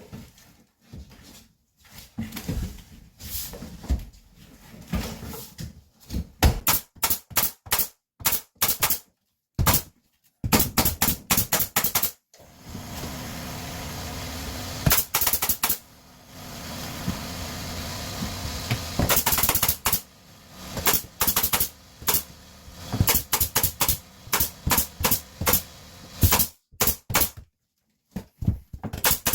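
Gypsum board being fixed to a closet wall with a power fastening tool, which goes off in quick rattling runs of sharp impacts. Between the runs there are stretches of steady noise, and the sound breaks off abruptly several times.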